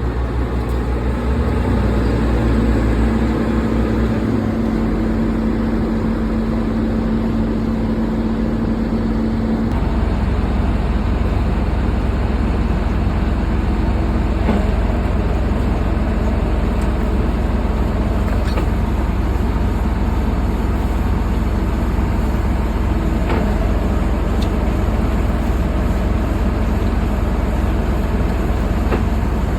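Bulldozer's diesel engine running steadily. A steady hum in the sound stops about ten seconds in, and a few faint knocks come later.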